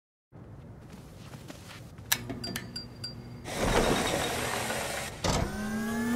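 Mechanical sound effects: faint scattered clicks, a rush of noise starting about halfway through, then a motor-like whir that rises slightly in pitch near the end.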